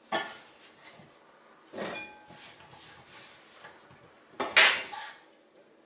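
Three spaced knocks on a bamboo cutting board while champignon mushrooms are cut with a chef's knife, some with a short metallic ring of the blade. The loudest knock comes about four and a half seconds in.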